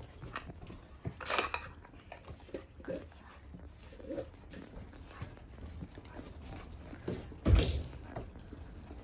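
Two dogs, a German Shepherd and a black dog, licking and chewing food off a gloved hand, with small scattered smacking sounds. A single thump about seven and a half seconds in.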